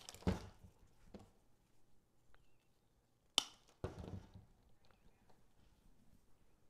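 Faint rustling and clicking of artificial greenery and a berry pick being handled and worked into a lantern swag, with a sharp click at the start and another about three and a half seconds in.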